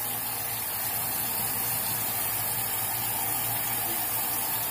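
Bathroom sink faucet running in a steady stream.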